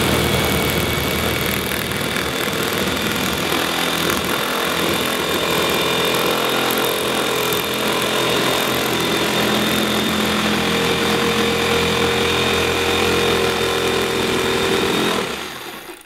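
Jigsaw cutting through a thin white wall panel, its blade and motor running steadily with a high whine, then shutting off near the end.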